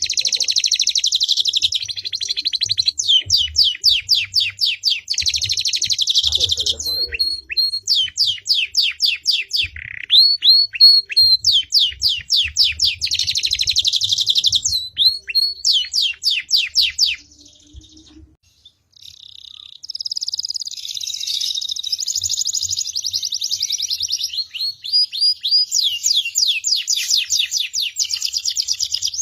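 Songbird singing a long run of rapid trills and fast repeated notes, high-pitched, in 'gacor' full-song form. The song breaks off for about three seconds just past the middle, then resumes.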